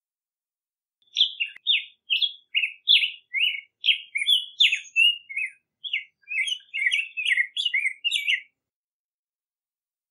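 Black-headed grosbeak singing: one long warbled phrase of quick notes rising and falling in pitch, starting about a second in and stopping well before the end.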